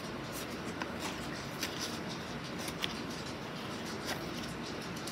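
Faint rustle and scattered small ticks of Upper Deck hockey cards being flipped through in the hands, card stock sliding over card, over a steady low hiss.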